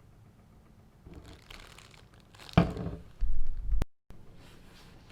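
Packaging crinkling and rustling as a newly unboxed tool is handled. About two and a half seconds in there is a sharp knock, followed by a loud low rumble of handling, then the sound cuts to dead silence for a moment.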